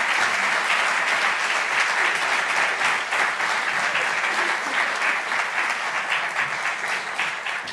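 Audience applauding, many hands clapping in steady applause that fades away near the end.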